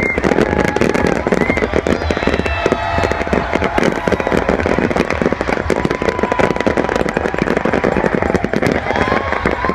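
Large fireworks barrage going off nonstop: dense, rapid crackling and popping reports layered over a continuous rumbling roar, with occasional brief whistle-like tones.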